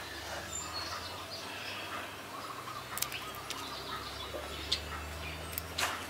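A few sharp snips of small hand scissors cutting a seedling, about three seconds in and again near the end. Under them, birds chirp faintly over a low steady hum.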